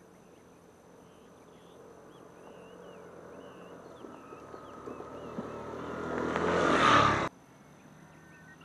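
Motorcycle riding up a dirt track, its engine growing steadily louder as it comes close, then cut off abruptly about seven seconds in. Faint bird or insect chirps sound in the first few seconds.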